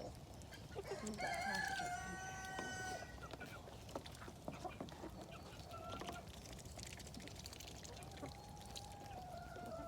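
Rooster crowing twice: one long crow about a second in and another near the end.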